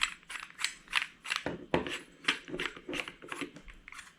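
Metal lightsaber emitter being unscrewed from the hilt by hand: a quick run of small metallic clicks and scrapes, about three or four a second, as the threads and parts rub.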